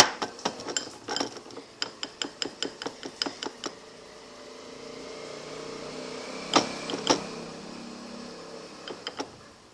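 A utensil clicking rapidly against a bowl as slime mixture is stirred fast, about five clicks a second. After about four seconds it gives way to a softer, steadier stirring sound, with two loud knocks around the middle.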